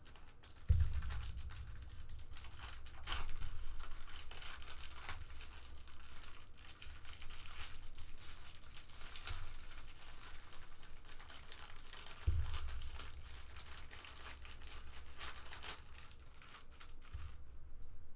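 Plastic card packaging crinkling and rustling as trading cards are handled and pulled out, with a low bump about a second in and another near the middle.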